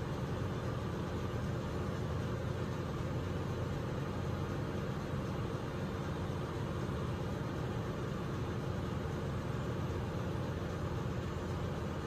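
Steady, even drone of running shipboard machinery, deepest and strongest at the bottom, with no distinct events.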